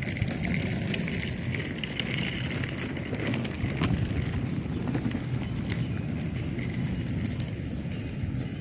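Outdoor street ambience: a steady low rumble of traffic, with a few sharp clicks scattered through it.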